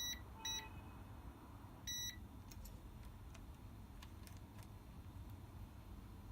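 Multimeter continuity beeper giving three short, high beeps as the test probes touch a conductor, the first near the start and the last about two seconds in, then a few faint clicks of probe tips tapping. A beep marks an unbroken path; where it stays silent, the line is broken.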